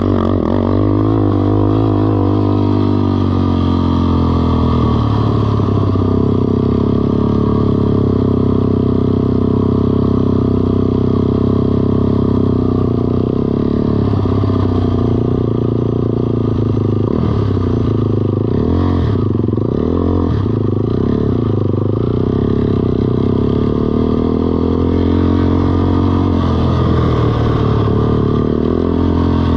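Small ATV engine running at a steady speed, its pitch wavering up and down a few times in the second half.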